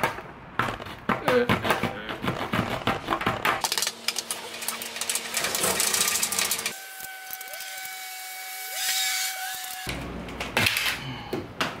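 Serrated edge of a DeWalt knife sawing back and forth through the thin plastic side-panel slide of a window air conditioner, a quick run of rasping strokes. About seven seconds in, the strokes give way for about three seconds to a quieter steady hum before the scraping resumes.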